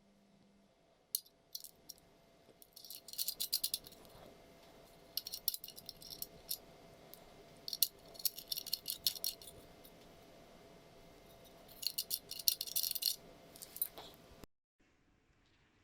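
Light metallic rattling and clinking in four short bursts of quick clicks a few seconds apart, with single clicks in between.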